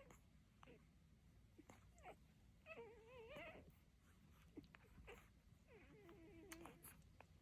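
Dachshund puppy making two squeaky, wavering whines as it yawns: one about three seconds in, and a lower one about six seconds in. Faint small clicks come between them.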